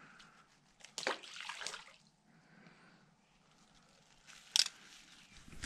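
A small fish tossed back into the water with a brief splash about a second in. Near the end, a single sharp clack as metal pliers are set down on a concrete ledge.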